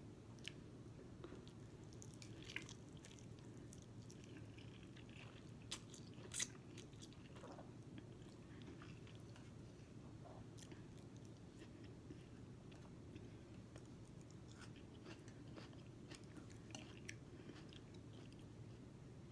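Faint chewing of ramen noodles and sushi, with a few soft clicks, the loudest about six seconds in, over a steady low room hum.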